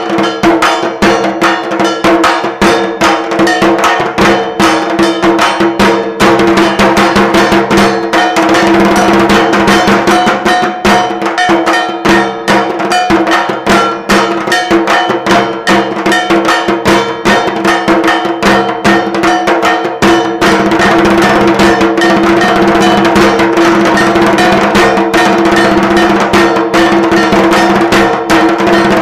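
Fast, continuous clanging of struck metal with drumming, with a ringing hum underneath: puja worship percussion such as bells and gongs played together with drums.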